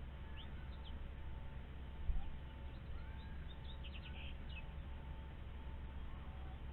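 Faint, short high bird chirps in scattered runs over a steady low rumble and a faint steady hum. A single low thump comes about two seconds in.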